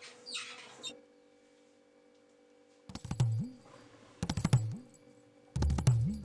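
A few scratchy rubbing noises in the first second, then a short quiet stretch. About three seconds in, background music starts: short bursts of percussive hits with bass notes that bend up and down, coming about every second and a half.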